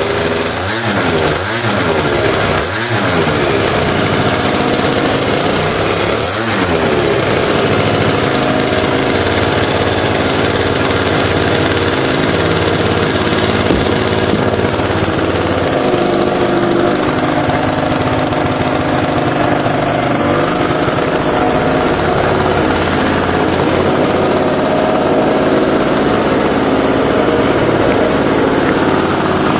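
Tuned F12R scooter's liquid-cooled Minarelli two-stroke engine, fitted with a Stage6 Sport cylinder kit, Dell'Orto 19 mm carburettor and non-homologated Stage6 Pro exhaust. It is given several short throttle blips in the first seven seconds or so, each rising and falling in pitch, then settles into a steady idle.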